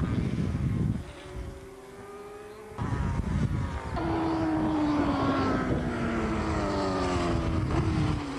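Racing motorcycle engines at high revs. A bike is heard faintly in the distance for a couple of seconds, then from about four seconds a bike passes close, its engine note falling steadily as it goes by.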